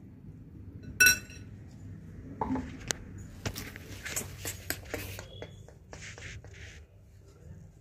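A mixer-grinder jar and a steel vessel being handled: one sharp, ringing metal clink about a second in, then a run of lighter clinks and knocks and a short scraping sound.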